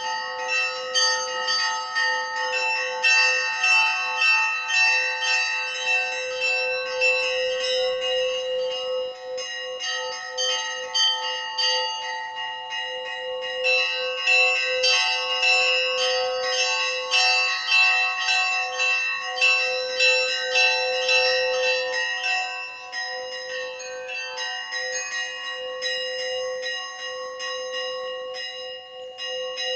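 Church bells ringing: several bells struck in quick succession, with a lower bell's steady tone ringing on beneath them.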